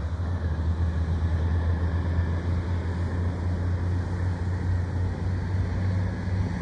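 A heavy engine running with a steady low drone.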